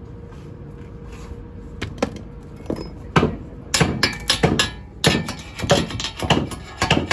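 Hammer blows on metal: a few scattered knocks at first, then a quick, irregular run of sharp blows from about three seconds in.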